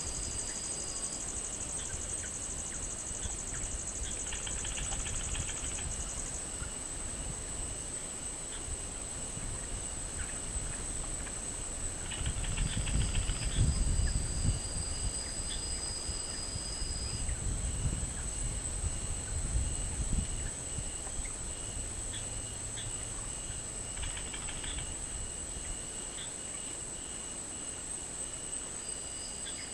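Night insect chorus of crickets. One steady high-pitched trill runs throughout, a second shrill trill comes and goes, and a pulsing chirp swells into short bursts every several seconds. A low rumble rises and falls around the middle.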